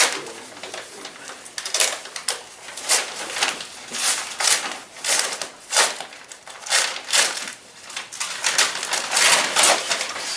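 Paper rustling and crinkling in quick irregular bursts, as a sealed bid envelope is opened and the bid papers are handled.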